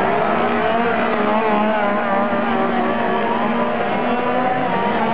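Several chainsaws running at once, their engine pitches overlapping and wavering up and down as they are revved.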